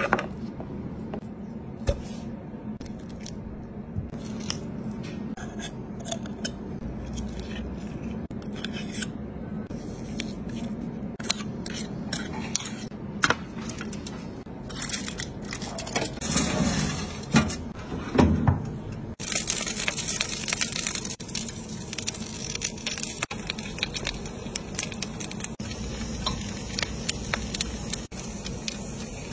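Food-preparation handling sounds: scattered clicks, taps and scrapes of snail shells and utensils being handled, over a steady low hum. A few louder handling noises come near the middle, and a steady hiss fills the last third.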